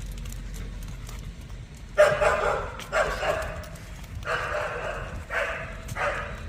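A dog barking: five barks, about one a second, beginning about two seconds in.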